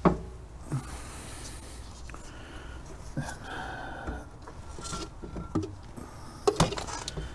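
Brake parts being handled and fitted at the wheel hub: sharp metal clicks and knocks, the loudest right at the start, another just under a second in and a cluster near the end, with rubbing and scraping between.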